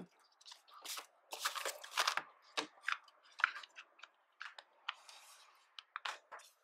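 Handling noise of a phone being fitted into a square, mirror-backed hard plastic case: a string of irregular clicks, taps and scrapes with light rustling between them.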